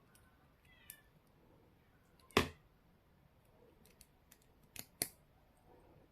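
Sharp, isolated clicks and taps, the kind made by handling small hard plastic parts. The loudest comes a little over two seconds in and two more follow close together near the end. Before them, about a second in, there is a faint short high call.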